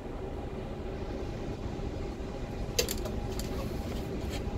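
Steady low vehicle engine hum and rumble, creeping slowly, with a few sharp clacks in the second half.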